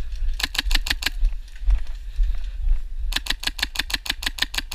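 Airsoft electric rifle firing full-auto bursts, rapid even clicks about eight a second: a short burst near the start and a longer one from about three seconds in, over a low rumble.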